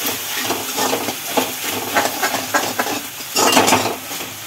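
A metal ladle stirring and scraping onion and capsicum in a metal wok (kadhai) as the vegetables sizzle. The ladle makes repeated short scraping strokes, and there is a louder burst about three and a half seconds in.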